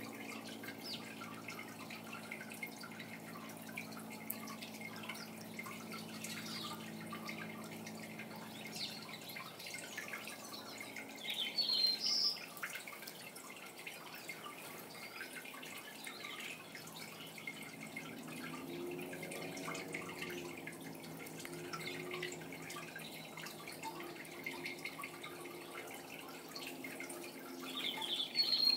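Two short, high house sparrow chirps, one about twelve seconds in and one at the very end. Under them run faint, scattered, drip-like ticks and a low hum.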